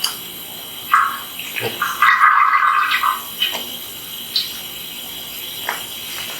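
Cooking oil being poured into a pot, with a short splash about a second in and a longer pouring stretch around the middle.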